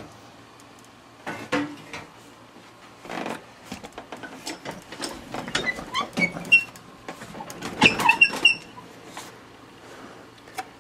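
Glass vacuum tubes being worked in and out of their sockets on a vintage television chassis: irregular clicks and rubbing with short high squeaks, busiest about halfway through.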